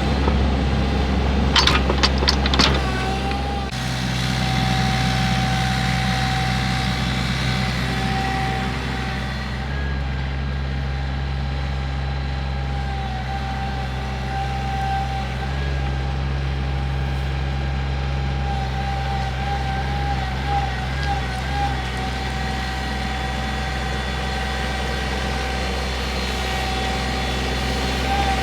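Mini excavator's engine running steadily under load with a steady high whine over its drone, as it pushes dirt back into a hole. A few sharp knocks about two seconds in.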